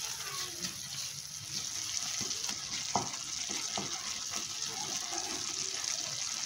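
Pan of salted water boiling with a steady hiss as rolled oats are stirred in with a wooden spatula, which knocks and scrapes against the pan a few times around the middle, most sharply about three seconds in.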